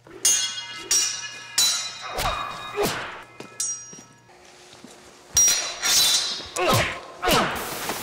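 Steel swords clashing again and again, about nine strikes, each one ringing on with a bright metallic tone. A few sweeping sounds that fall in pitch come between the strikes.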